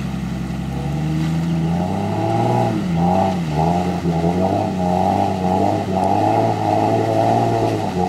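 Monster truck's engine revving hard while the truck is stuck in mud. The pitch climbs about a second in, then rises and falls over and over as the driver tries to power it out.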